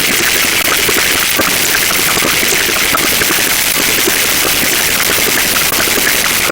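A loud, steady rushing noise like static or heavy rain, brighter in the upper range, holding level throughout.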